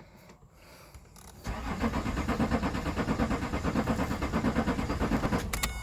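Vauxhall Vectra 3.0 CDTi V6 diesel being cranked over by its starter, a rhythmic pulsing of about five beats a second lasting about four seconds, without the engine firing; it cuts off with a few clicks near the end. The car cut out and now won't start.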